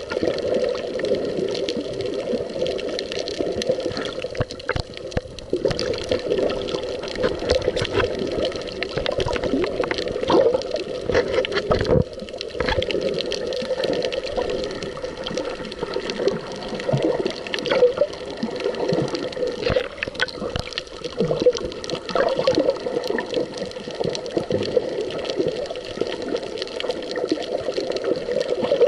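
Muffled underwater water noise, a steady rushing and sloshing with scattered crackles and clicks.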